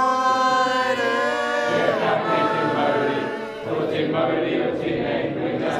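A group of teenagers' voices singing and chanting together unaccompanied: one strong held note for about a second and a half, then a looser mix of many overlapping voices.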